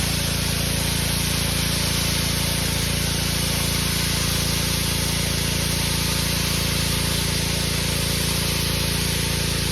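Honda gas engine of a Simpson MegaShot 2800 PSI pressure washer running steadily, with a loud even hiss of high-pressure water spraying from the gun.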